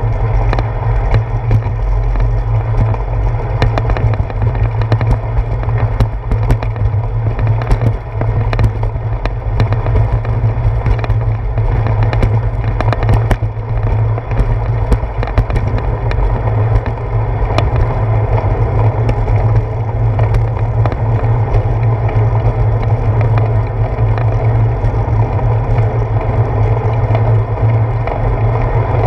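Steady wind rumble and tyre noise picked up by a handlebar-mounted GoPro on a moving bicycle, with frequent sharp clicks and knocks as the bike and mount jolt over bumps in the path, thickest in the middle stretch.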